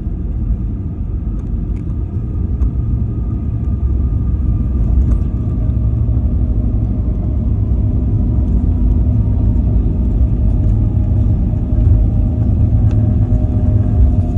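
Airliner cabin noise on the landing roll: a heavy low rumble from the engines and wheels on the runway, growing louder about four seconds in, with a steady engine whine above it.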